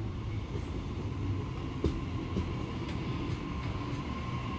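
Sydney Trains Waratah double-deck electric train running along the platform: a steady low rumble with sharp clicks of wheels over rail joints. A steady high whine sets in near the end.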